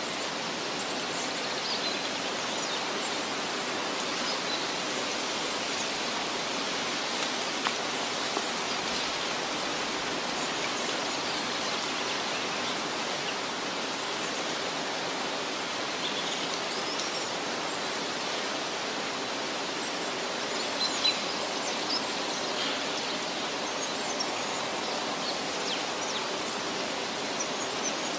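Steady outdoor nature ambience: an even rushing noise like running water, with faint bird chirps now and then.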